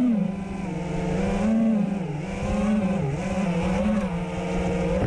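A five-inch FPV racing quadcopter's brushless motors (Hypetrain 2450kv) spinning DAL Cyclone T5050C tri-blade props: a steady buzzing whine whose pitch dips and rises several times with throttle changes as it flies low.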